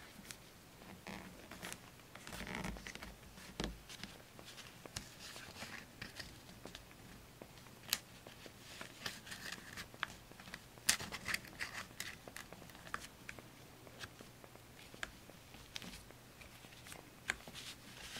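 Close-up handling of paper and craft materials on a journal page: scratchy rustling and scraping with many light, sharp clicks and taps, the loudest click about eleven seconds in.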